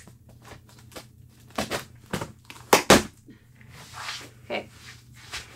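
Cardboard shipping box being opened by hand: packing tape tearing and cardboard flaps scraping and rustling, with two sharp cracks close together about three seconds in.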